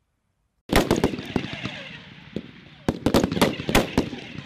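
Several rifles firing from a prone firing line: sharp, overlapping shots break out suddenly less than a second in, thin out, then come in another quick cluster near the end.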